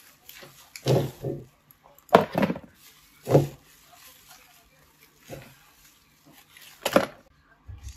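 Plastic bubble-wrap bag crinkling in irregular bursts as hands pull a mouse and its cable out of it; the loudest crinkles come about two seconds in and near the end.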